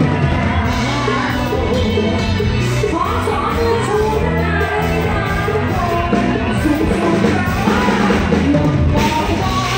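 Live band music with a woman singing lead into a microphone; drums, bass and keyboards play behind her.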